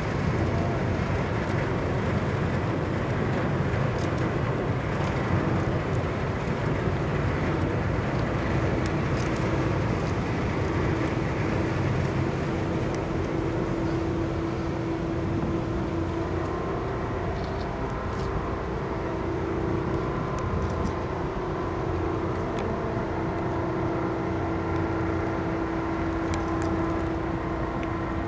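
Steady low engine rumble with a steady hum that grows stronger about halfway through.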